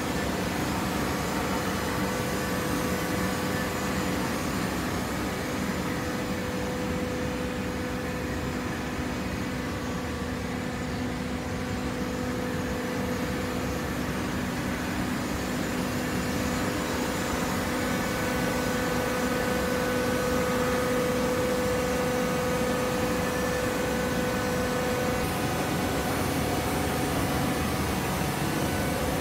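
Hydraulic cardboard baler running: a steady machine hum with a few held tones over an even noise, growing slightly louder about two-thirds of the way through.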